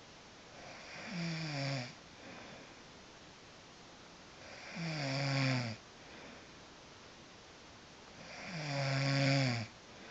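A woman snoring: three long snores on the in-breath, about four seconds apart, each swelling in loudness, with a fainter breath out after each.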